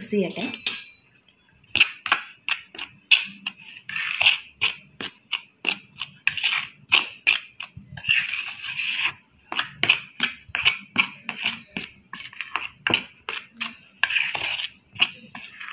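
Metal spoon stirring a dry flour and cornflour coating in a stainless steel plate: quick, repeated scrapes and clinks of spoon on steel through the powder, a few strokes a second.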